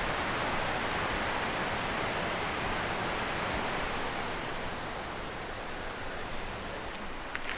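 Glacial meltwater river rushing over rocks: a steady, even rush of water that eases a little in the second half.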